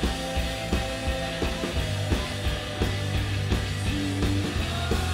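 Live indie math-rock band playing: electric guitars and a held bass line over a drum kit, with regular drum hits.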